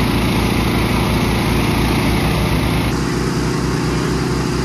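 Small gasoline-engine portable water pumps running steadily, pumping water out of the excavation around a broken water main. The drone changes character abruptly about three seconds in.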